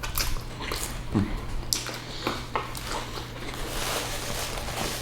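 Close-miked eating: irregular wet chewing and smacking with scattered clicks, over a steady low hum.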